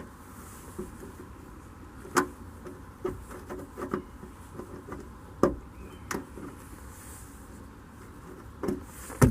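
Plastic push-rivet trim clips on a car's inner trunk-lid cover being pried out with a hooked plastic pry tool: a string of separate sharp clicks and taps, the loudest about two seconds in, about five and a half seconds in and at the very end.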